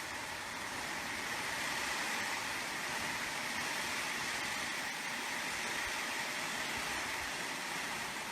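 Strong wind blowing steadily, a rushing hiss with no breaks.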